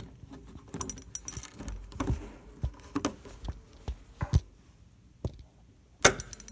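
Flathead screwdriver and the door knob's metal latch hardware clicking and scraping as the small retaining clip is worked loose, a string of light irregular clicks with one sharper metallic click near the end.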